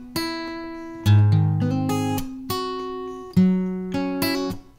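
Acoustic guitar recording ('AcGtr.wav') played back at its own sampling rate, so at normal pitch and speed: a run of picked notes, each starting sharply and ringing out as it fades, with stronger low notes about a second in and again at about three and a half seconds.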